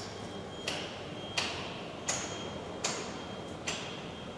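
Sharp metallic knocks at an even pace, about one every three-quarters of a second, each ringing briefly, over a steady high whine and background hiss.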